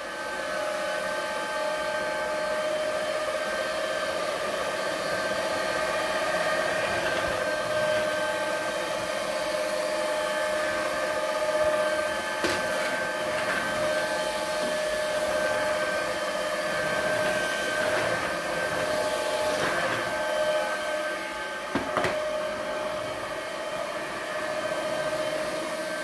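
Cordless stick vacuum cleaner running steadily, its motor giving an even whine over a rushing hiss as the floor head is pushed around. The motor sound is judged to be ok. There are a couple of brief knocks, about twelve and twenty-two seconds in.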